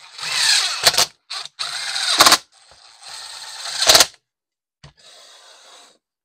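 Cordless power driver running in three machine screws, one after another: each run is a short whirr that rises in pitch and ends in a brief rattle of sharp clicks as the screw seats. A fainter, shorter run follows near the end.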